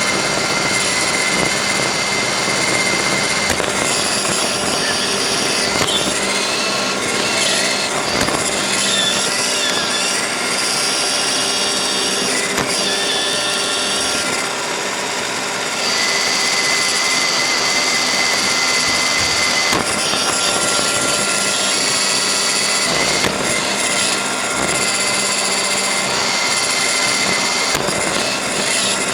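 Roomba robot vacuum running, heard from right on top of it: a steady whir of its vacuum motor and brushes, with a high whine that fades and returns, and a few brief knocks.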